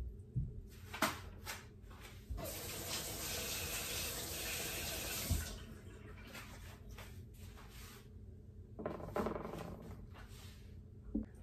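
Kitchen tap running into a stainless steel sink for about three seconds, water splashing over hands, then shut off. Light clicks and a brief rustle follow near the end.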